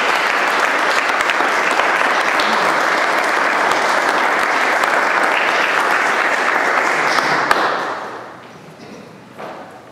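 Small audience applauding, the clapping dying away about eight seconds in.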